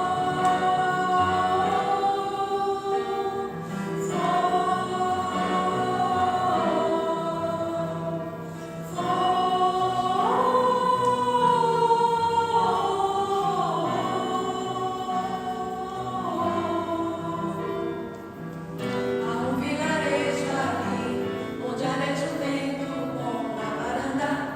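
Choral music: a choir singing long held phrases that move slowly in pitch.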